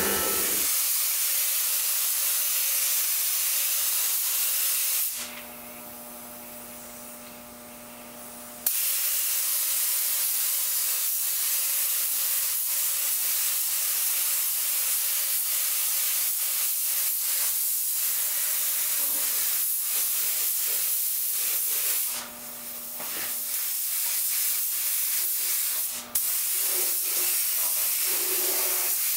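Compressed-air paint spray gun hissing steadily as it sprays a car body. The hiss stops for about three and a half seconds about five seconds in, and twice more briefly later, as the trigger is let off.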